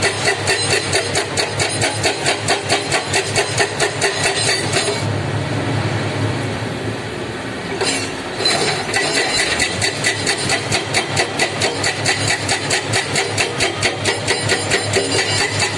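Heavy diesel construction machinery running with a regular beat of about four pulses a second. About five seconds in the beat stops for roughly three seconds and a deeper hum takes over, then the beat comes back.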